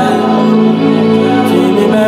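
Slow gospel song with long held notes.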